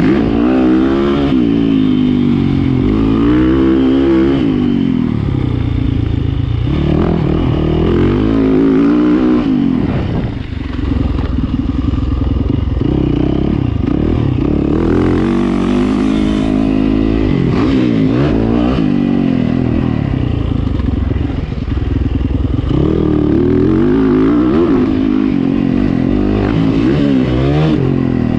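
Yamaha YZ450F four-stroke dirt bike engine heard close from the rider's position while riding, its pitch climbing and dropping over and over as the throttle is opened and shut through the turns and straights.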